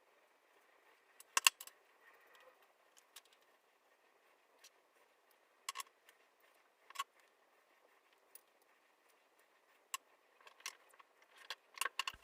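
Sparse, faint clicks and crackles of the cable and electrical tape being handled as the cable is wound and taped onto a wooden pole. The sharpest click comes about a second and a half in, and the clicks bunch up near the end.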